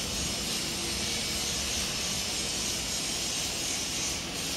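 Steady whooshing machine noise with a strong hiss, unchanging throughout, with no clear engine beat or pitch.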